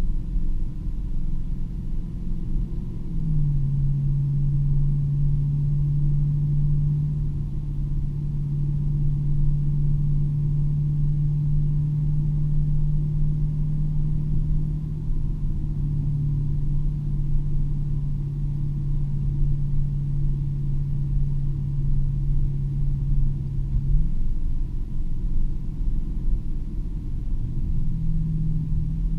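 Dodge Challenger Hellcat's supercharged 6.2-litre HEMI V8 cruising at highway speed, heard inside the cabin as a steady engine drone over low road rumble. The drone drops away about three-quarters of the way through and returns a little higher near the end.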